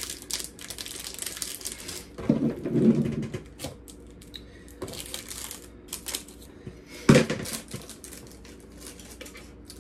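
Crinkly plastic packaging being handled and opened by hand: scattered crackles and small clicks, a louder rustle a little over two seconds in, and a sharp knock about seven seconds in.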